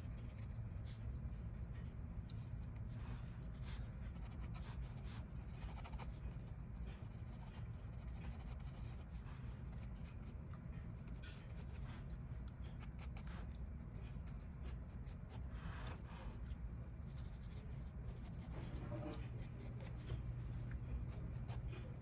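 A pencil scratching and sliding on sketchbook paper in many short, irregular strokes, over a steady low hum.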